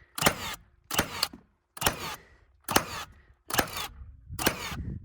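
Nail gun firing nails into subfloor sheathing, six shots about a second apart, each a sharp bang with a short hiss after it.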